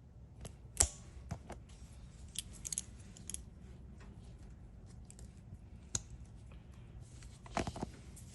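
Small vise grips (locking pliers) gripping and twisting a stripped screw stuck in a tire, giving scattered metal clicks and scrapes; the sharpest click comes about a second in and a short cluster near the end.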